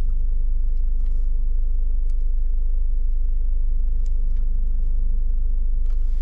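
Volkswagen Tiguan's engine idling, heard inside the cabin as a steady low rumble with a constant hum above it. A few faint clicks come and go.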